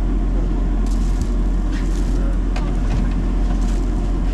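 Steady low rumble of machinery aboard a passenger train standing at the platform, with a few scattered clicks and knocks and faint voices in the background.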